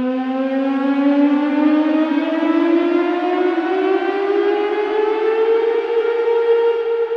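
Air-raid siren sound effect winding up: one long, slow rise in pitch that levels off about six seconds in and holds.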